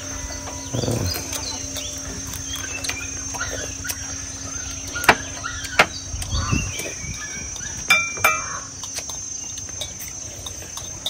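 Spoons and chopsticks clicking against ceramic soup bowls a few times, the sharpest clicks a little past halfway, during a meal. Birds chirp and insects drone steadily at a high pitch behind them.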